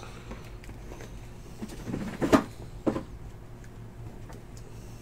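A few knocks and thumps of cardboard trading-card boxes being handled and set down, the loudest a little over two seconds in, over a low steady hum.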